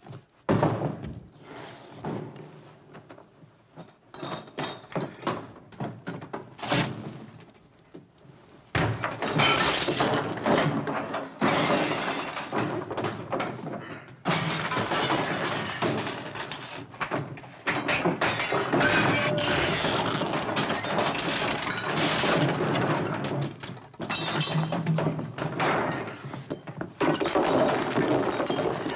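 A room being wrecked: furniture overturned, objects thrown and glass breaking, in a run of crashes, thuds and shattering. Separate impacts at first, then a dense, nearly unbroken clatter of smashing from about nine seconds in.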